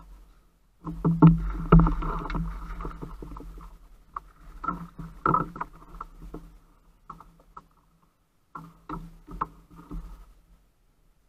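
Thumps and knocks against a plastic fishing kayak's hull as a California halibut is netted and brought aboard, ringing hollowly through the hull. A dense flurry with some hissing splash about a second in, then scattered knocks, with another cluster near the end.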